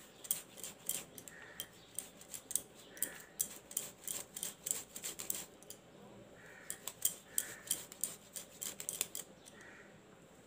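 Boiled potato being grated on a flat stainless steel hand grater, quick scraping strokes with the grater's metal edge clicking on a steel plate. The strokes come in two runs with a short pause about halfway.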